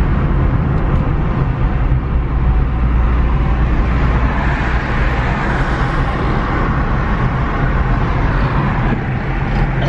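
Road and wind noise inside a moving car: a steady low rumble with a rush of wind that grows stronger around the middle.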